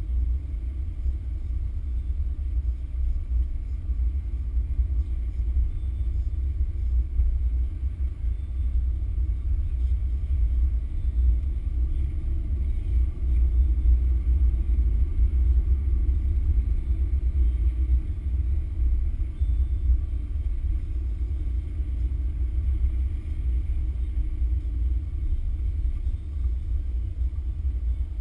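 Low, steady rumble of a car driving slowly on a wet road, engine and road noise heard from inside the car.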